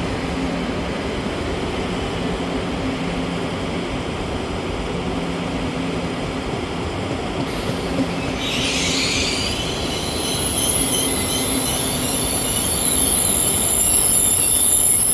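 A passenger train at a station platform. A low steady hum runs through the first half. From about halfway, a high-pitched wheel squeal sets in and grows louder toward the end.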